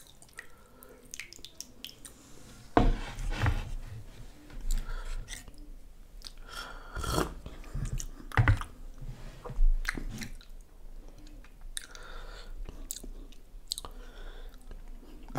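Close-miked chewing of a mouthful of chicken biryani, with irregular wet smacks and bites.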